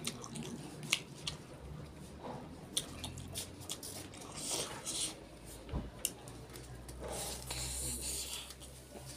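Close-miked fingers squishing and mixing rice with curry on a plate, with scattered small clicks, then soft wet mouth sounds as a handful is eaten near the end.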